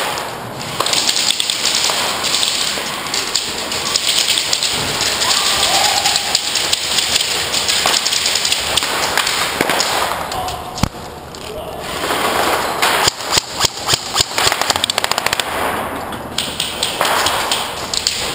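Airsoft guns firing in bursts indoors, with BBs pattering and cracking against surfaces. A rapid string of sharp shots comes about two-thirds of the way in.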